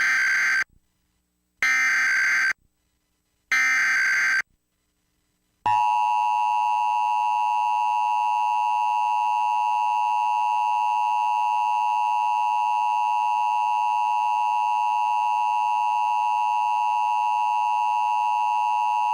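Emergency Alert System SAME header: three screeching digital data bursts of about a second each, a second apart. About six seconds in comes the EAS two-tone attention signal, held steady, which announces an alert message, here a Required Monthly Test.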